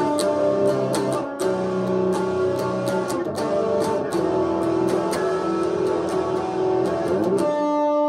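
Guitar playing in an original song, with a sharp tick repeating several times a second over the chords. About seven and a half seconds in the strumming and ticks stop, and a held chord rings on.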